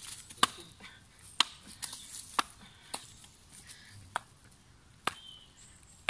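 Hand strikes on slabs of tree bark held out at arm's length, each a sharp crack as the bark is hit and broken, about one a second.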